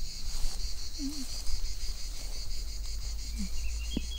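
Insects trilling in a steady, pulsing high chorus over a low steady rumble; a bird chirps several times near the end.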